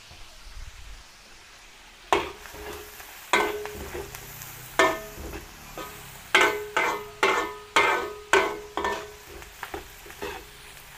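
Long metal ladle stirring frying food in a large metal wok. From about two seconds in it knocks and scrapes against the pan a dozen or so times, each stroke leaving a short metallic ring, over a faint sizzle.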